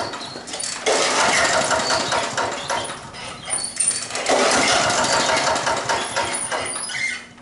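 Honda HR194 push mower engine pull-started twice. Each time it fires and runs for two to three seconds, then dies. It won't stay running, which the owner puts down to a blockage in the carburetor starving it of fuel.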